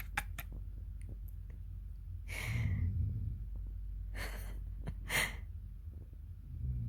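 A person breathing out in three short, breathy exhales or sighs, close to the microphone, over a faint low hum.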